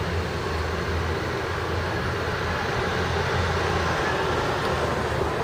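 Steady street noise: a low engine rumble under an even broad hiss, with no single event standing out.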